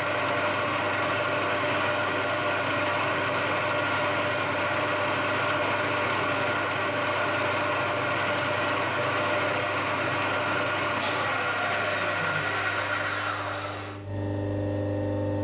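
Bridgeport milling machine spindle running steadily, turning an edge finder as it touches off against the end of a piston skirt. A little before the end the sound dips briefly and changes to a steadier, lower hum.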